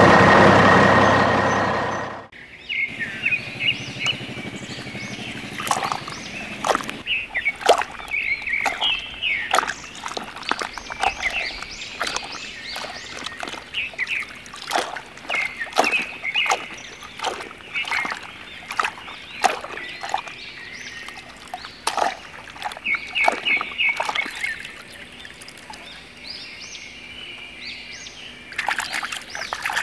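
Muddy water splashing and sloshing in irregular bursts as a plastic toy dump truck is pushed through a shallow puddle by hand. Birds chirp throughout. A loud, dense engine-like sound cuts off suddenly about two seconds in.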